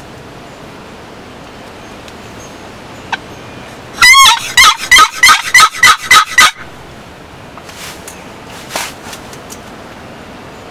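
A wild turkey gobbler gobbling once, loud and close: a rapid rattling run of about nine notes lasting over two seconds.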